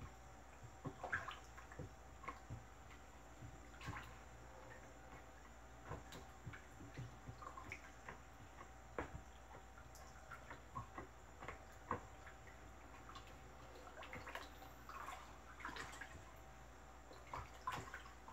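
Wooden spoon stirring a homemade caustic-soda polishing gel in a plastic bucket as the mixture thickens. Faint, irregular slopping of the liquid with scattered light knocks of the spoon against the bucket.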